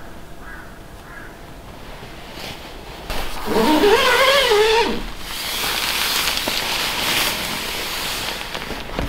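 A brief wavering call about three and a half seconds in, followed by several seconds of nylon tent fabric and down clothing rustling as someone crawls into a dome tent.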